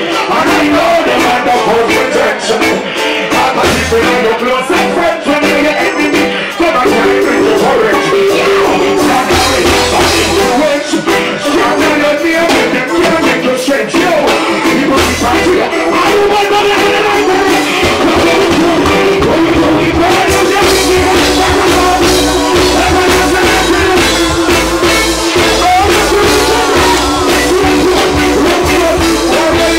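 Live reggae band of electric guitar, drums and keyboards playing loud through a concert PA while a male singer sings into a handheld microphone. The bass comes in only in short bursts at first, then settles into a steady line about twenty seconds in.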